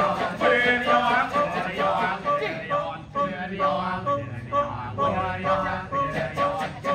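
Balinese Kecak chant: a large male chorus calling short, rapid 'cak' syllables in interlocking rhythm, over a steady low held voice.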